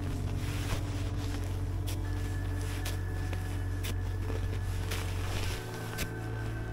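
Ambient background music: a low sustained drone with held tones above it, the bass shifting to a new note about five and a half seconds in.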